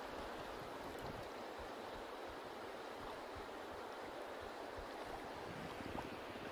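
River water flowing steadily, an even rushing sound with an occasional faint tick.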